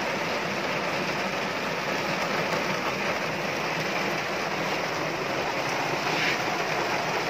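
Heavy rain falling on a car's roof and windshield, heard from inside the cabin as a dense, steady hiss.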